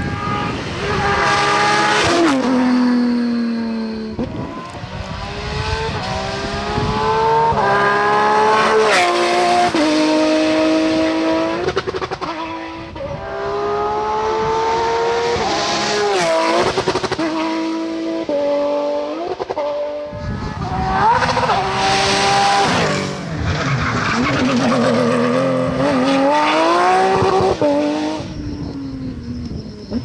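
Porsche 911 GT3 Cup rally car's flat-six engine at full throttle, the revs climbing again and again and dropping sharply at each upshift. Near the end the revs fall away and then build up again.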